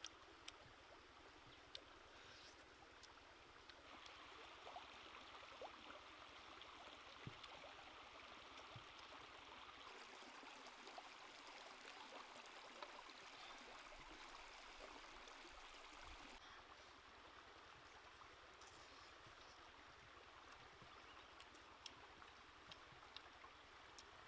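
Faint, steady rushing and trickling of a shallow forest stream, with a few small clicks scattered through it.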